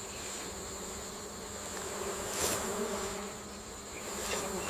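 Steady high-pitched buzzing drone of forest insects, with no break, and a brief soft swell of noise about halfway through.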